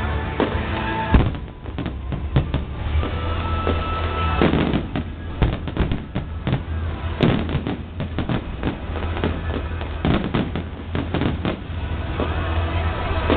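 Fireworks going off in a rapid string of sharp bangs, thickest in the middle of the stretch, over music with a steady bass.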